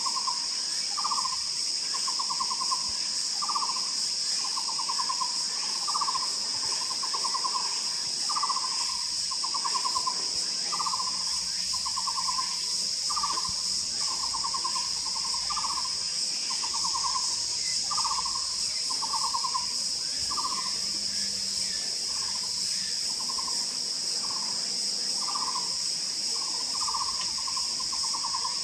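Taiwan barbet calling a long series of short, hollow, evenly repeated notes, a little faster than one a second, over a steady high drone of insects.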